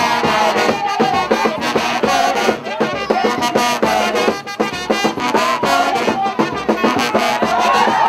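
Upbeat dance music with a steady drum beat and a wavering melody line over it.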